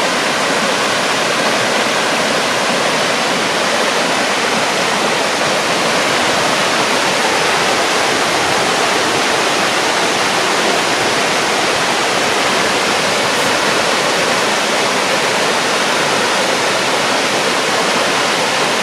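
Nanataki, a tiered waterfall, with water falling in a loud, steady rush that does not change.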